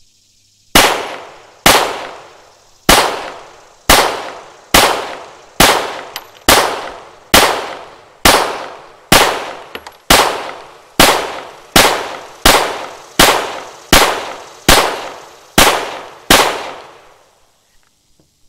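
Custom Glock 17 Gen 3 9mm pistol firing a magazine at a steady pace: about nineteen single shots, roughly one a second and getting slightly quicker, each ringing out for about half a second.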